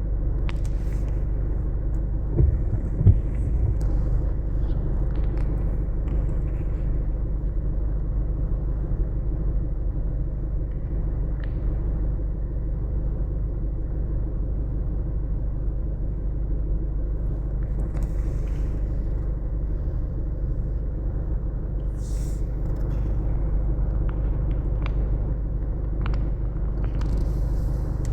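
Vehicle engine running with a steady low rumble. Two short knocks about two and a half to three seconds in.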